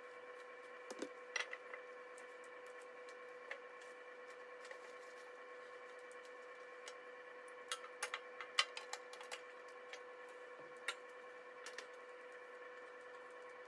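Faint scattered metallic clicks and taps as the wing-nut clamps on a pressure sterilizer's lid are turned and tightened to seal it. They come in a bunch about a second in and again around eight to nine seconds in, over a steady faint hum.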